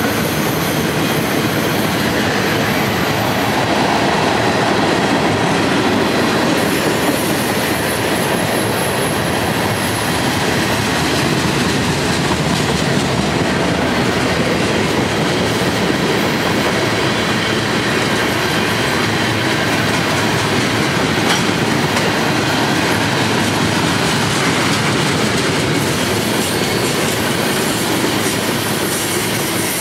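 Freight cars, boxcars and tank cars, rolling past close by: a steady, loud rumble of steel wheels on the rails.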